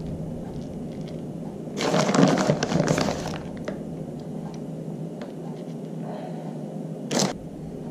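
Plastic bag of shredded cheese crinkling as it is handled and tipped, with a longer burst of crackling about two seconds in and a brief crinkle near the end.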